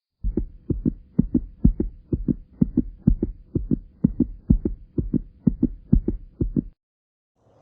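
Rhythmic low thumping in paired beats like a heartbeat, about two pairs a second, with a faint steady hum under it. It stops abruptly near the end.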